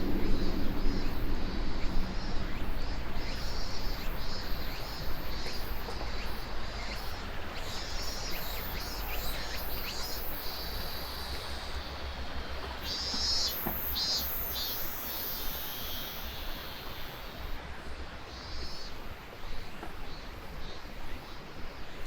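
Mountain forest ambience: high chirping calls from birds and insects come and go, over a low wind rumble. A low rumble fades away in the first couple of seconds.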